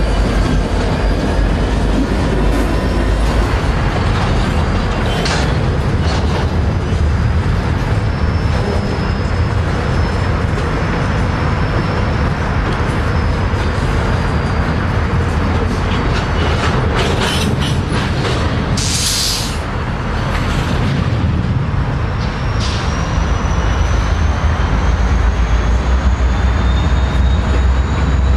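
Diesel locomotive running with a heavy, steady low rumble, with thin high squealing tones slowly rising in pitch. There is a short burst of air hiss about two-thirds of the way through.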